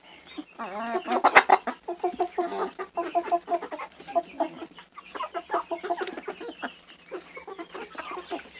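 A flock of chickens clucking and calling, many short calls overlapping, with a louder call about a second in.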